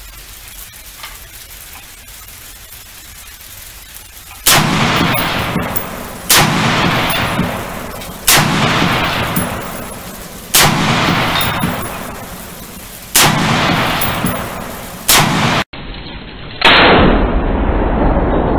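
AR-15 short-barreled rifle with a fake (non-functional) suppressor firing single shots, so the reports are unsuppressed. After a few seconds of quiet, seven sharp shots come about two seconds apart, each ringing out in a long echo.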